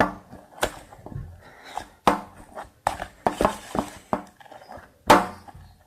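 A stirrer knocking and scraping against a container while a slime mixture of PVA glue, liquid soap and gom is stirred, in irregular sharp clicks with a brief ring, the loudest about five seconds in.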